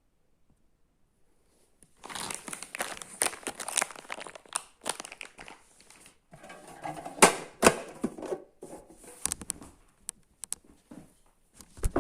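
Packaging being handled, crinkling and tearing, with sharp clicks and knocks. It starts about two seconds in, after near silence.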